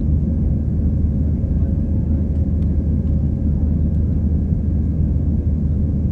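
Jet airliner cabin noise during the climb after takeoff: a steady low rumble of engines and airflow heard from inside the passenger cabin, with faint steady tones over it.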